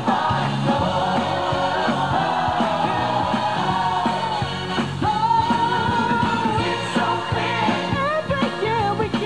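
Song with singing over a full band backing, including one long held sung note about five seconds in.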